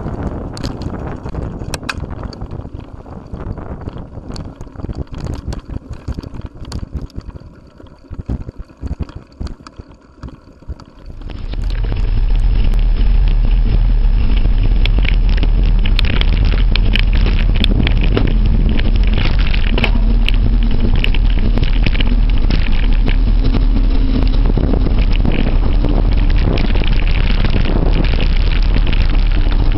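Mountain bike rolling over a rough trail, with a steady run of clicks and knocks from the rattling bike. After a sudden change about a third of the way in, heavy wind rumble on the microphone dominates, with the rattling still going on under it.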